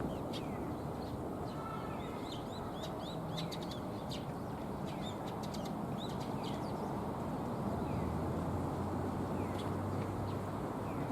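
Birds chirping in many short, high, quickly falling notes, thickest in the first half and thinning out later, over a steady low background rumble.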